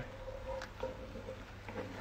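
Mushrooms sweating in butter in a pan, stirred with a wooden spoon: a faint sizzle under a steady low hum, with a faint held tone that shifts once about a second in.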